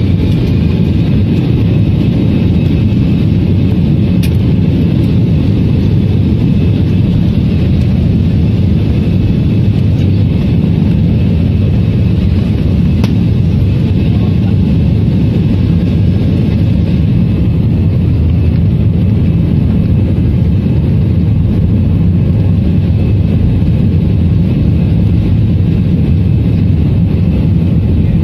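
Jet airliner cabin noise heard from a window seat as the plane rolls along the runway: a loud, steady engine rumble and rushing noise, with a faint high whine that fades out about two-thirds of the way through.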